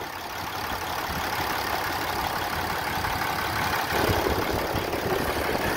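A 2012 Ram 2500's 6.7 L Cummins inline-six turbo diesel idling steadily, getting a little louder about four seconds in.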